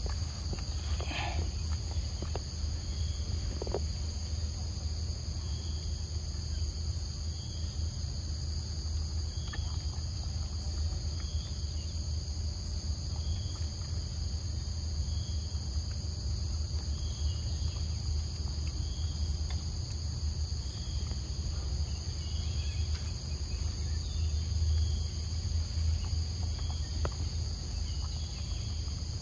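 Steady, high-pitched chorus of insects buzzing without a break, with faint short chirps repeating every second or two over a low steady rumble.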